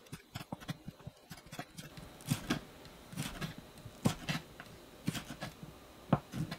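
Chef's knife slicing red chili into thin strips on a wooden cutting board, the blade tapping the board with each cut. A run of light quick taps, then slower taps in pairs about once a second.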